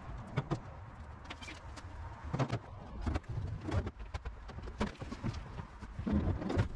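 Scattered short knocks and clatter, with a bird calling in the background a few times.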